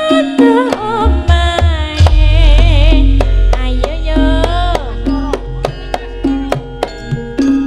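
Javanese gamelan (karawitan) music in Sragenan style: a singer's wavering, ornamented voice over regular drum strokes and ringing metallophone tones. A deep low note comes in about a second in and rings on for several seconds.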